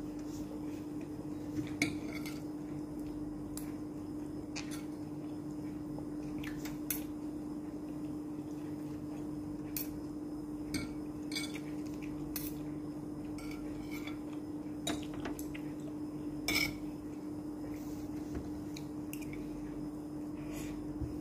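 A metal spoon and fork clinking and scraping against a plate in scattered, irregular clicks, over a steady low hum.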